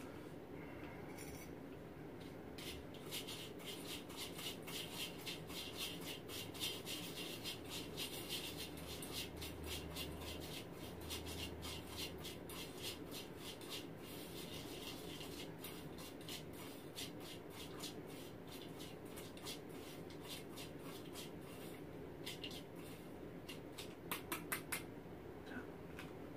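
Quiet, rapid rubbing or scraping strokes, several a second and fairly even, with a brief run of sharper clicks near the end.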